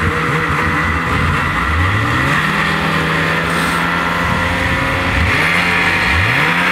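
Snowmobiles revving and pulling away through the snow; the engine pitch climbs twice as they accelerate, over a steady hiss.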